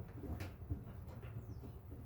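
Faint clicks and light handling knocks of small parts being worked by hand, the sharpest about half a second in, over a low steady hum.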